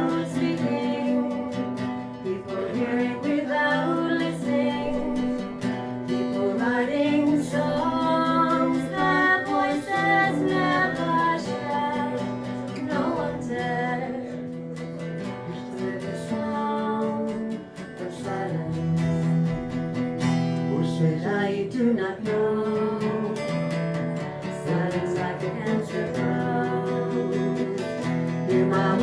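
Acoustic guitar playing chords under a voice singing a slow folk melody.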